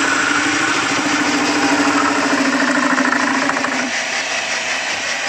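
A power tool runs steadily as a weld-built-up steel ball-joint ball is shaped, with a steady hum that drops away about four seconds in while the harsher machining noise goes on.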